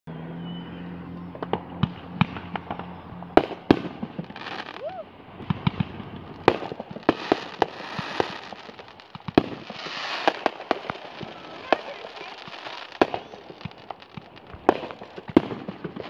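Aerial fireworks going off: an irregular string of sharp bangs, some coming in quick pairs, with stretches of hiss between them.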